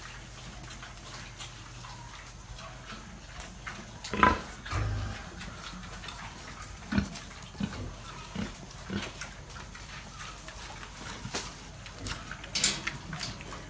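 Pigs grunting and snuffling as they feed, with scattered knocks; the loudest grunt comes about four seconds in.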